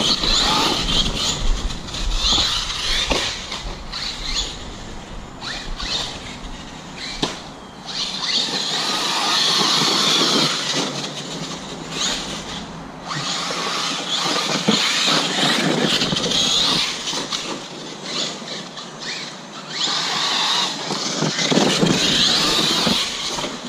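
Arrma Kraton 6S RC truck running in repeated surges of acceleration with quieter gaps between, its drivetrain noise high-pitched. This is the driveline noise the owner suspects comes from a failing rear differential.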